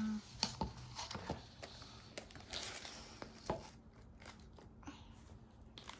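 Packaging being pulled open and handled: soft crinkling and rustling with a scatter of small clicks and taps.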